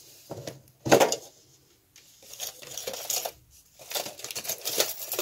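A metal chain bag strap clinking and rattling as it is lifted out of its box, with a louder knock about a second in.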